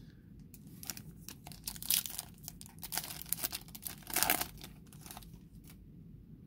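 A foil trading-card pack wrapper from a Topps Star Wars Chrome Galaxy box being torn open by hand, crinkling and ripping in a run of crackly tears that are loudest about two seconds in and again around four seconds in.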